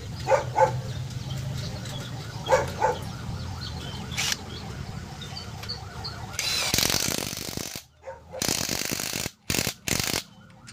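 Cordless impact wrench running down the top nut on a freshly fitted strut mount bearing: one long burst about six and a half seconds in, a second burst, then three short blips near the end as the nut tightens. Earlier a dog barks twice in quick pairs.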